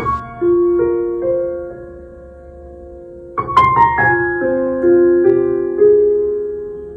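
Background piano music: soft notes and chords struck in short phrases, each left to ring and fade, with a quieter stretch in the middle.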